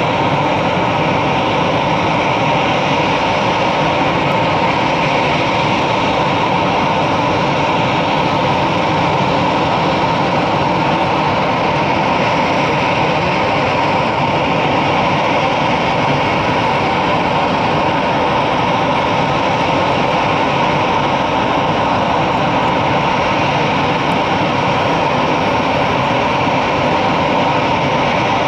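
Airbus A319 jet engines running steadily: a constant rush with a steady whine, holding the same level throughout, without the rise of a takeoff run.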